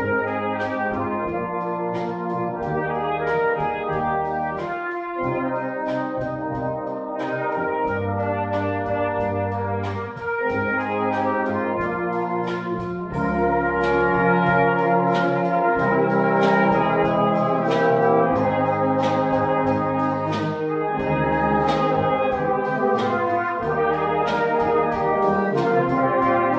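A brass band, with cornets, trombones and tubas, playing a piece together in full chords while a drum kit keeps a steady beat. The band gets louder about halfway through.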